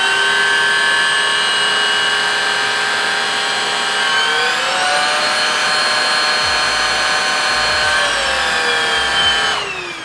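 A Prettycare W200 cordless stick vacuum's motor runs with a steady high whine. About four and a half seconds in it climbs to a higher pitch, comes back down a few seconds later, and winds down as the vacuum is switched off near the end.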